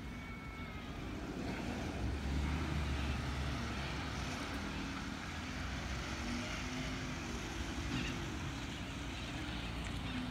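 Recycling garbage truck's engine running as the truck approaches along the street. A low rumble grows louder about two seconds in and then holds steady.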